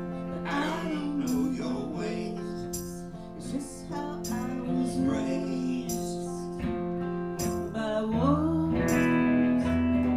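Live slow song on acoustic guitar: strummed chords ringing on, with a gliding melody line over them.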